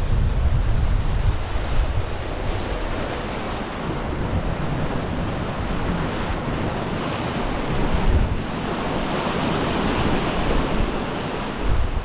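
Sea surging and washing over shoreline rocks, with wind buffeting the microphone; the wash swells louder in the second half.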